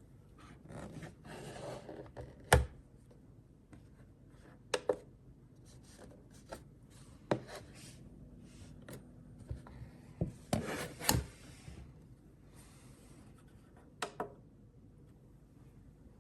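Hands handling an object: rubbing and shuffling, with scattered clicks and knocks. The loudest knock comes a couple of seconds in.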